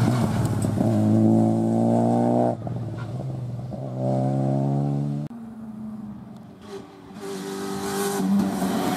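Rally car engines held at high revs under full throttle. The engine note breaks briefly about two and a half seconds in, comes back, and cuts off sharply about five seconds in. Another car's engine then builds up louder toward the end.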